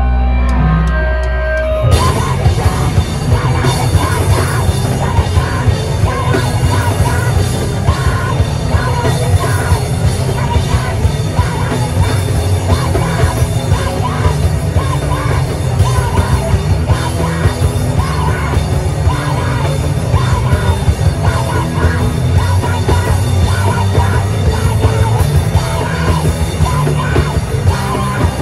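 Live rock band at full volume. A low held note rings for about the first two seconds, then drums, distorted guitars and yelled vocals come in all together and keep driving hard.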